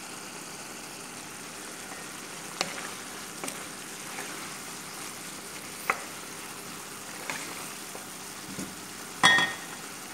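Minced beef, bell pepper and tomato sizzling in a frying pan, a steady hiss, with a few sharp clicks as a wooden spoon stirs against the pan and a louder knock with a brief ring near the end.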